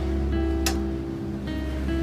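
Background music with sustained notes over a steady bass, and a single sharp click about two-thirds of a second in.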